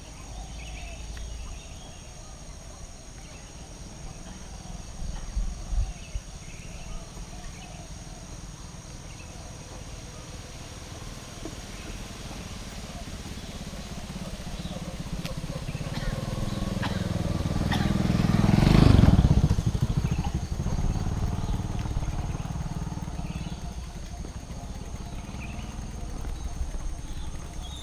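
A motor vehicle drives past, its engine growing louder to a peak about two-thirds of the way in, dropping in pitch as it passes and fading away. Under it runs a steady high insect drone.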